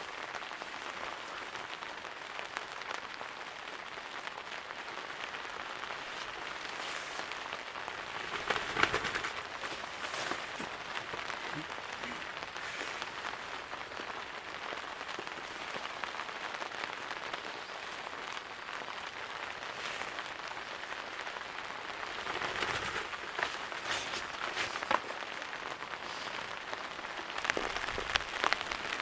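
Steady rain falling, with scattered louder drops tapping now and then and brief heavier spells.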